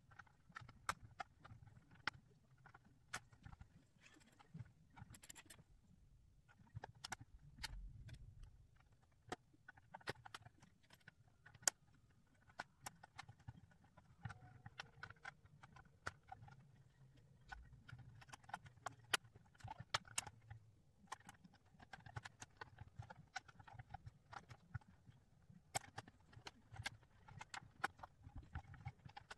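Plastic jigsaw pieces of a Ravensburger 3D puzzle ball clicking and tapping as they are handled and pressed into place, in quiet scattered clicks at an uneven pace.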